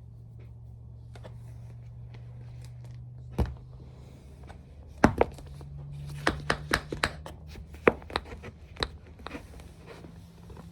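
Tap shoes clicking sharply on a hard floor in an irregular pattern: a single tap about three seconds in, then a cluster of about eight taps over the next few seconds, over a low steady hum.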